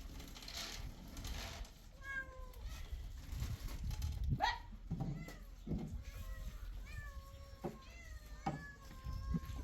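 A series of short animal cries with bending pitch, about one every second in the second half, mixed with a few soft knocks.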